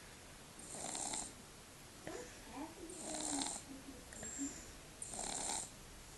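A baby with a cold snuffle-snoring through a blocked nose: three noisy, rasping breaths about two seconds apart.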